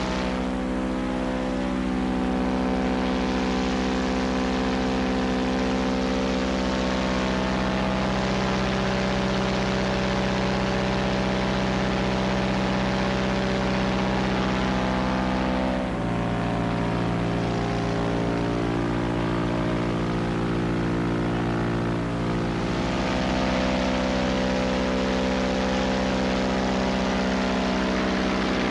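Homemade light aircraft's piston engine running steadily with the propeller turning. Its pitch shifts abruptly twice, about halfway through and again about two-thirds through.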